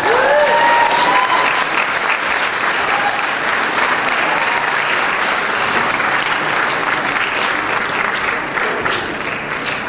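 Audience applauding steadily, with a few cheering whoops at the start.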